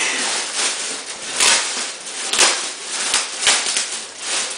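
Plastic and tissue-paper wrapping crinkling and rustling in irregular bursts as a large package is pulled open by hand.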